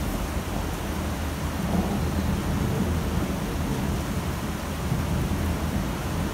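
Steady rain in a city: an even hiss of falling rain over a continuous low rumble, with no single claps or drops standing out.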